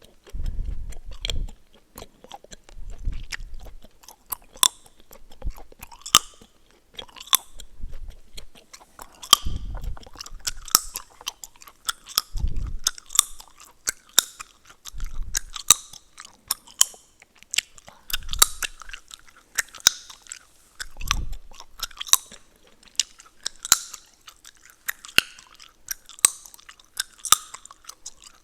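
Close-miked gum chewing: a steady run of wet mouth smacks and sharp gum cracks and pops, several a second, with soft low thuds of the jaw now and then.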